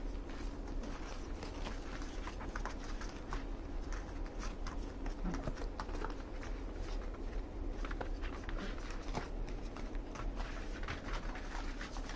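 Puppies scampering and tussling, their paws and claws scrabbling on cardboard and blankets in a steady run of quick scratchy clicks and patters.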